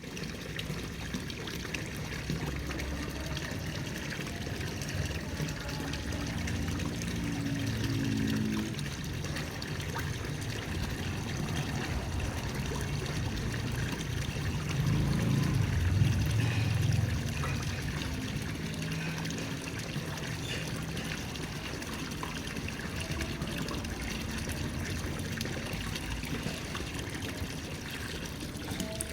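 Water trickling and splashing steadily, as at a koi pond, growing louder for a couple of seconds about halfway through.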